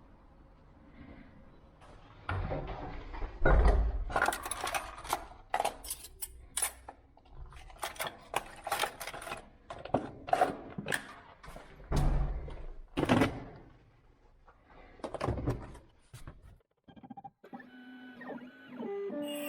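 Irregular metallic clicks, rattles and knocks with a few heavier thuds: a key blank and locksmithing tools being handled while a new key is made. Background music comes in near the end.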